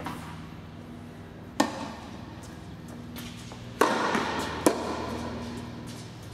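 Tennis ball hits in a rally on an indoor hard court: three sharp racket strikes and bounces, each echoing briefly in the hall, over a low steady hum.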